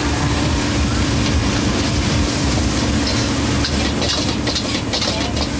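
Beef fried rice being stir-fried in a wok: the spatula scrapes and clatters against the pan in short strokes, busiest from about three and a half seconds in, over a steady low rumble.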